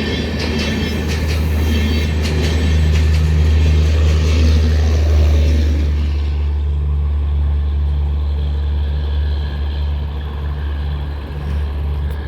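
Express train's coaches rolling past, wheels clicking rhythmically over rail joints with a hiss of rolling noise. About halfway through the clicks and hiss fade, leaving a steady low rumble.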